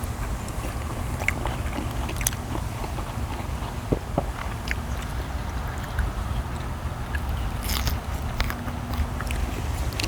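People chewing and biting grilled beef tenderloin, with scattered small clicks and scrapes. A steady low rumble of wind on the microphone runs underneath.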